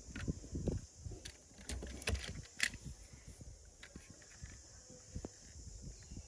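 Die-cast metal toy cars being handled and swapped: scattered light clicks and soft knocks, with a few sharper clicks around the middle.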